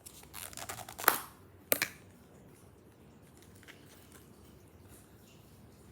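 Slime-kit packaging being handled: a short crinkly rustle, then two sharp clicks about half a second apart, then only faint quiet handling.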